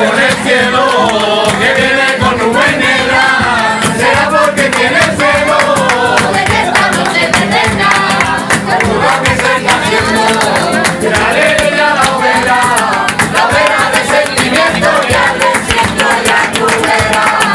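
A group of people singing a song together, accompanied by strummed classical guitars.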